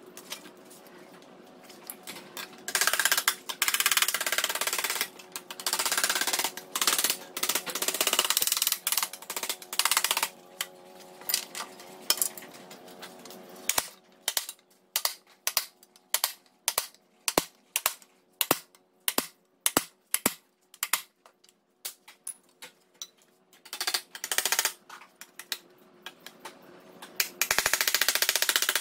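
Hand work on a sheet-steel repair panel on a bench mat: long stretches of rustling and scraping as the paper template and steel sheet are handled, then a run of sharp metallic taps, about two a second, from a hand tool on the steel, and more scraping near the end.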